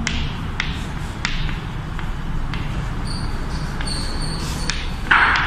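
Chalk tapping and scratching on a blackboard as a heading is written, over steady room noise. A faint high chalk squeak sounds partway through, and a short louder rasp comes near the end.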